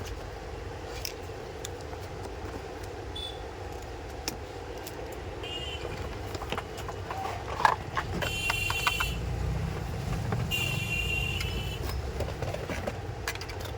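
Several sharp plastic clicks, then a battery toy machine gun's electronic sound effect sounding twice, each burst lasting about a second, over a steady background rumble.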